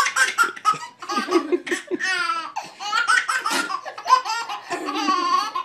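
A baby laughing in a long run of high-pitched bursts, one after another.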